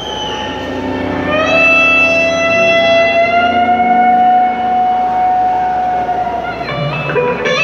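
Live electric slide guitar playing long held notes that glide up in pitch and sustain for several seconds, changing note near the end, with the band playing more quietly underneath.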